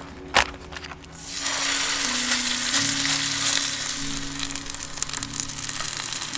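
A steak sizzling in a hot frying pan. The sizzle fades in about a second in and then holds steady, just after one sharp click.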